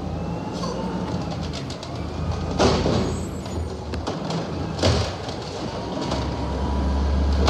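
Automated side-loader garbage truck running while its hydraulic arm lifts a trash cart, dumps it and lowers it again. Two sharp bangs come as the cart is emptied, about two and a half and five seconds in, and the engine grows louder near the end as the arm comes back down.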